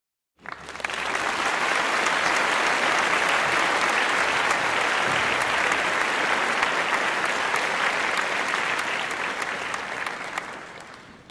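Applause: dense, steady clapping that starts abruptly and fades out near the end.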